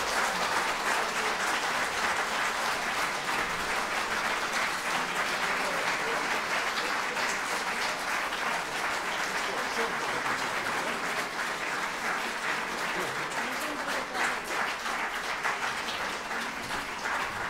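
Audience applauding: steady, dense clapping that holds at an even level throughout.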